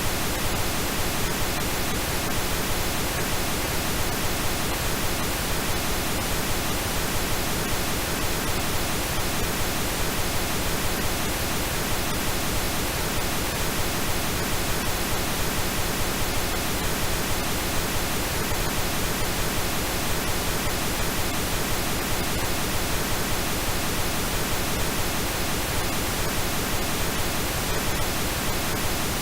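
Steady synthetic pink noise with a few faint steady tones mixed into it, unchanging throughout.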